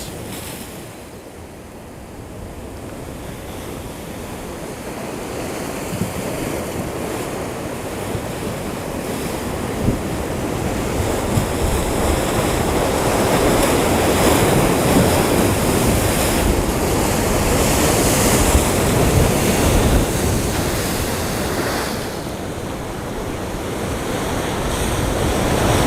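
Ocean surf breaking and washing on the shore: a steady rush that swells slowly to loud over the first half, eases near the end, then builds again.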